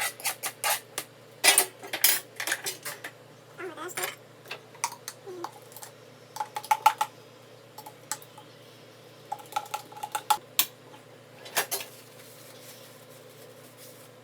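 Kitchen utensils clinking and knocking against dishes and bowls: irregular sharp clicks, a few with a short ringing tone, stopping about 12 seconds in.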